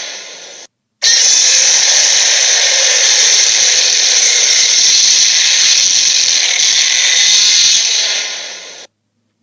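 Dragon sound effect: a loud, harsh hissing rasp. It starts abruptly about a second in, right after the tail of the previous effect dies away, runs for about eight seconds, and fades out near the end.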